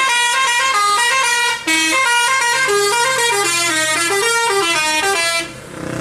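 Tour bus's musical multi-note air horn (telolet) playing a quick tune of short stepping notes, stopping about five and a half seconds in.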